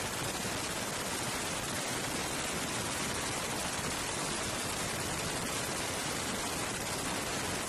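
Steady, even rushing noise at a constant level, with no beat, tone or change.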